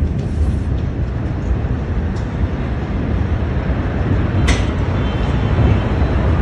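Steady low rumble on a phone's microphone, with a single sharp click about four and a half seconds in.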